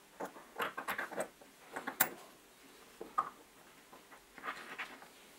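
Small steel parts of a cordless hex driver's head (spring, washers, spindle and cup) clicking and clinking against each other as they are fitted together by hand. A scatter of light metallic taps, with a sharper click about two seconds in.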